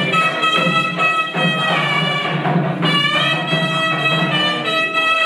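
Music: a wind instrument plays a sustained, gliding melody over a steady drum beat.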